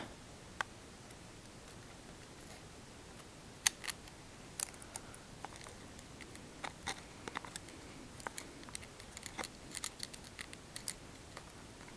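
Faint, scattered small clicks and ticks of fingers and a pry tool working a ribbon cable connector in a second-generation iPod Touch, trying to snap the replacement screen's cable into its socket. The clicks come sparsely at first and grow more frequent in the second half.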